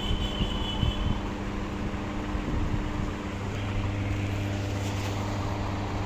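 Steady mechanical hum with low droning tones, like an engine running, and a deeper drone joining a little past halfway.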